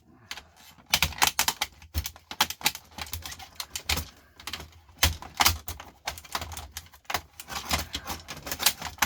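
Rapid, irregular clicking and clattering of plastic clips and parts being pried and pulled off appliance control boards.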